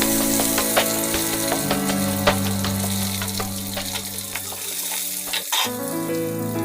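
Chicken sizzling as it fries in oil, with repeated sharp clicks of a utensil stirring it in the pan, over background music.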